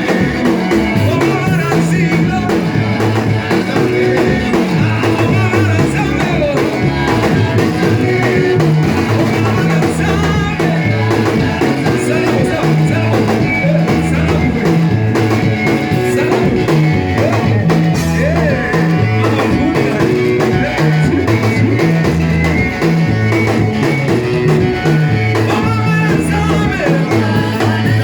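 Church worship band music: drum kit, a repeating bass line and guitar, with voices singing, continuous and steady.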